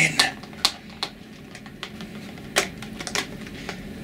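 A small packet of beans being fumbled and pried at by hand: a few irregular sharp clicks and crinkles of the packaging, the loudest about two and a half seconds in.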